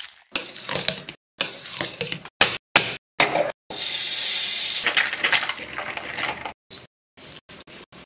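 Ghee sizzling in an aluminium kadai, heard in short snippets chopped apart by abrupt silent cuts, with a few sharp knocks and clinks of the pan. The longest, steadiest stretch of sizzling comes about halfway through.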